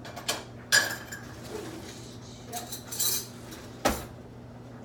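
Pot and spoon clattering while being washed by hand, a handful of sharp knocks and clinks, the loudest about four seconds in, over a low steady hum.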